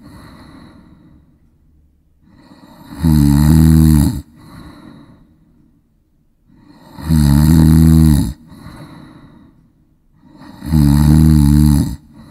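A person snoring: three loud snores on the in-breath, about four seconds apart and each just over a second long, each followed by a quieter, breathy out-breath.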